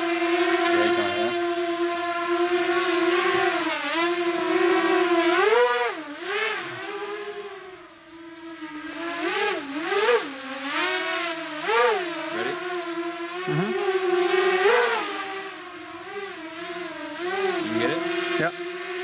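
Racing quadcopter's brushless motors and KingKong 5040 bullnose props whining at a steady pitch as it flies. Repeated quick swoops up and down in pitch come from the throttle being punched and chopped, and the sound briefly falls away about eight seconds in.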